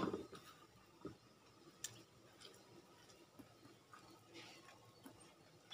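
Faint ticks and soft scraping of a finger pressing milk-soaked puppy kibble against a stainless steel bowl, with a few small clicks spaced about a second apart.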